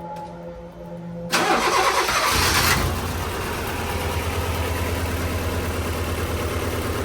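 Honda Civic EF four-cylinder engine starting about a second in, loud as it catches, then settling to a steady idle that 'ain't sounding too good' on its old, burnt spark plug wires.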